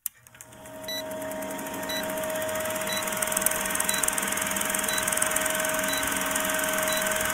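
Old film projector sound effect running under a countdown leader: a steady mechanical whirr with rapid fine clatter and a held tone, and a short high tick about once a second.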